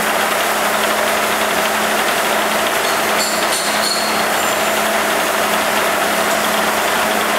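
TOS FS 100 K/A 2 CNC table milling machine running with a steady whirring hum and one constant low tone. A few brief high-pitched whines come in about three seconds in.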